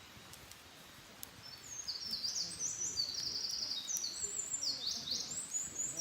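A small songbird singing a long, fast run of high, twittering notes, some sweeping up or down, starting about a second and a half in.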